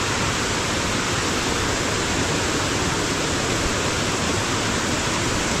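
Rushing water of a creek running high: a steady, unbroken rush.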